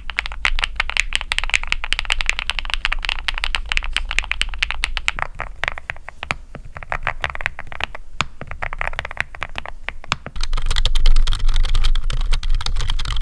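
Fast continuous typing on custom mechanical keyboards, a dense clatter of keystrokes. The sound changes twice as one keyboard gives way to another: about five seconds in it turns softer and duller, and about ten seconds in it turns louder and deeper.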